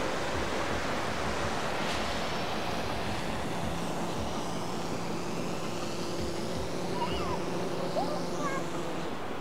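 Steady surf and wind noise with the faint hum of a SwellPro FD3 quadcopter fishing drone, which grows steady from about three and a half seconds in as the drone flies back in to land.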